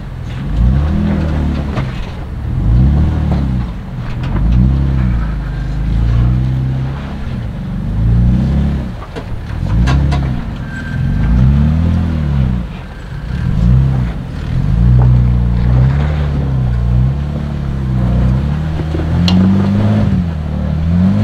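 Jeep Wrangler JK engine revving under load in repeated throttle blips, about one every two seconds, as the Jeep crawls up over boulders.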